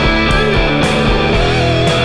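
Background rock music with guitar and a steady beat about twice a second.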